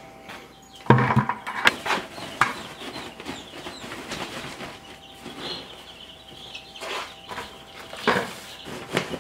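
A plastic scoop digging into a box of dry wood shavings and tipping them into a plastic bucket. The scraping and rustling comes in several short bursts, the loudest about a second in and again near the end.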